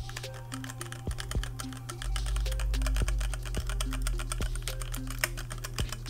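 Fast typing on a HyperX Alloy Origins mechanical keyboard fitted with HyperX Pudding double-shot PBT keycaps: a dense, steady run of key clicks, with background music underneath.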